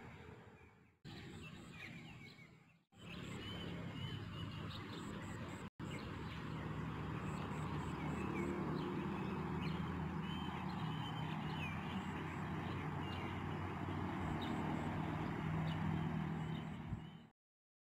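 Outdoor ambience of birds chirping again and again over a steady low hum, broken by three brief cuts in the first six seconds and ending abruptly near the end.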